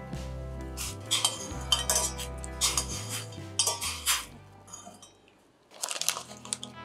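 A metal utensil clinking and scraping against a small stainless-steel saucepan as salt is stirred into a simmering soy-and-mirin broth, a run of sharp, irregular clinks over the first few seconds. A short scraping rustle comes about six seconds in.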